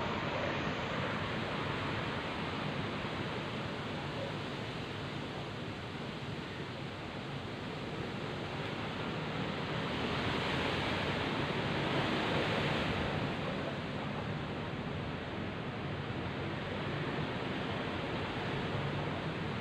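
Heavy rain and strong wind: a steady rushing noise that swells louder for a few seconds about halfway through.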